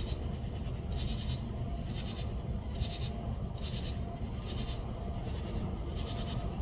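Approaching loaded coal train's GE diesel locomotives working hard in notch 8 up the grade: a steady deep rumble. Regular high-pitched pulses sound a little less than once a second.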